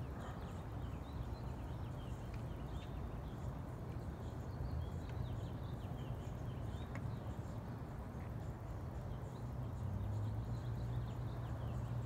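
A steady low hum of no clear source, stronger in the last couple of seconds, with small birds chirping over it.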